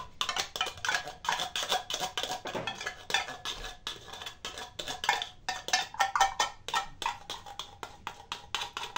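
A metal utensil scraping and tapping inside a small box of tomato sauce to empty it: a rapid, uneven run of short clicks and scrapes, several a second.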